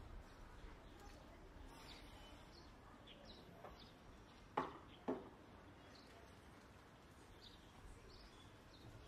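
Quiet ambience with faint bird chirps now and then, and two sharp knocks about half a second apart midway.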